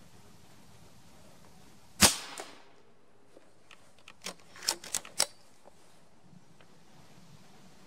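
A Reximex Throne PCP air rifle in .22 (5.5 mm) fires once, a sharp crack about two seconds in. A couple of seconds later come a few quick mechanical clicks as the side lever is worked to load the next pellet.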